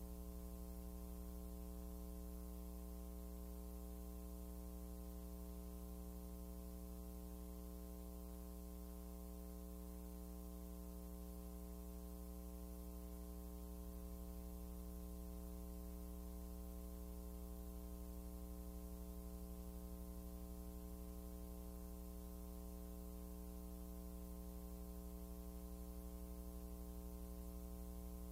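A steady, low electrical hum with a ladder of overtones, unchanging throughout, over faint hiss.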